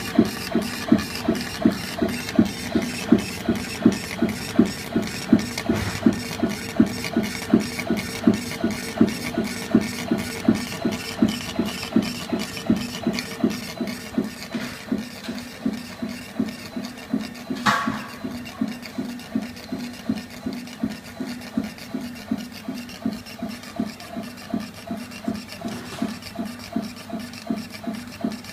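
Small 3020 CO2 laser engraver rastering over acrylic: the laser head's stepper-driven carriage runs back and forth with a regular knock about three times a second as it reverses at each end of its stroke, over a steady hum. A brief, higher-pitched sound cuts in about two-thirds of the way through.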